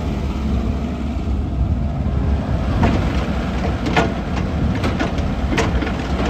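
Komatsu PC88MR-10 hydraulic excavator's diesel engine running steadily at idle, with a few short knocks or clinks in the second half.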